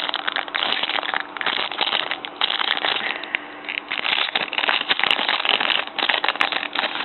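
Trading-card pack wrapper being crinkled and torn open and cards handled: a dense run of crackles and rustles with brief lulls.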